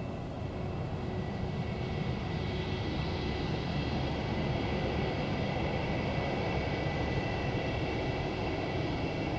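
Airbus A321-200 airliner's twin jet engines running as it rolls along the runway: a steady high whine over a deep rumble, growing gradually louder.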